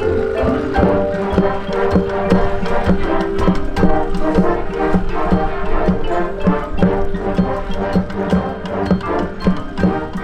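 High school marching band playing, with a percussion section keeping a steady beat under sustained wind notes.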